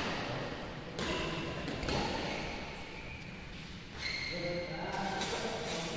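Badminton rackets striking a shuttlecock in a rally, sharp hits about one and two seconds in and a few more later, with voices in the background.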